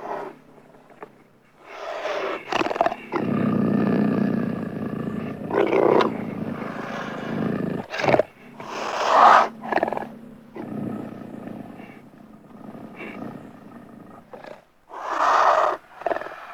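Beast growls sound effect: a long, low, rough growl followed by roars, the loudest about nine seconds in and another near the end, with quieter growling between.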